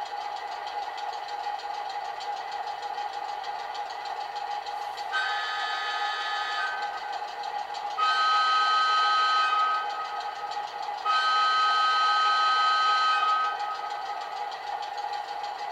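Sound-fitted OO gauge model of the diesel locomotive 10202 playing its recorded diesel engine running through its small onboard speaker, with three two-tone horn blasts, the second and third louder and longer.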